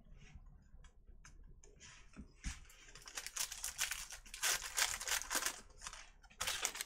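Light clicks of trading cards being handled, then a foil card pack torn open and crinkled from about three seconds in, with a last burst of crinkling near the end.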